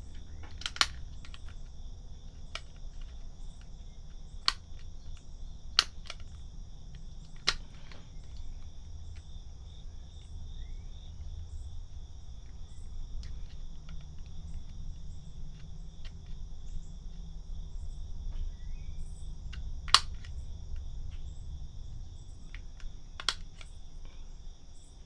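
A handful of sharp metallic clicks and taps as a screwdriver and pliers work the magazine release into a Glock 19X polymer frame, the loudest about twenty seconds in, with a steady high chirring of crickets behind.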